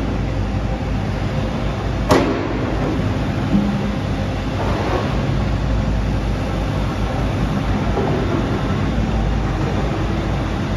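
Kobelco midi excavator's diesel engine running steadily while the hydraulic arm and bucket are worked, with a single sharp metallic clank about two seconds in.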